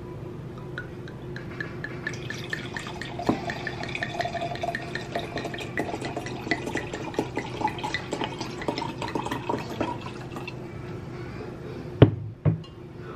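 Red wine poured from a bottle into a stemmed wine glass, splashing and glugging, with the pitch rising as the glass fills. The pour stops about ten seconds in, followed by a sharp knock and a smaller one as the bottle is set down on the counter.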